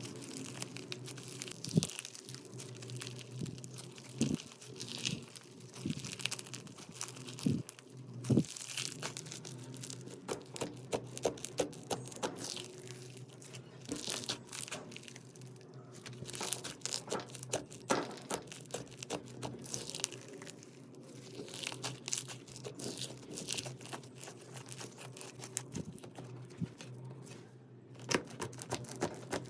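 Slime being squeezed and pressed by hand, making a dense, irregular run of crackling, popping and crinkling clicks, with a few louder snaps. A faint steady hum lies underneath.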